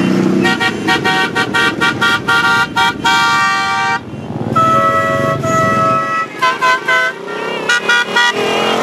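Horns honking on a line of passing cruiser motorcycles, over the engines running. A rapid string of short beeps ends in a held honk at about three seconds, longer honks in a different pitch follow, then more quick beeps.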